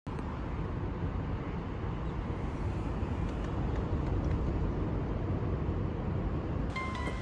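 Steady low outdoor rumble of passing traffic and air, with no single event standing out. Background music with a plucked string instrument starts near the end.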